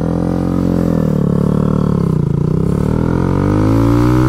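Kawasaki Z125 Pro's 125 cc single-cylinder four-stroke engine running while the bike is ridden. Its pitch sags to a low point about two seconds in, then climbs again and holds steady.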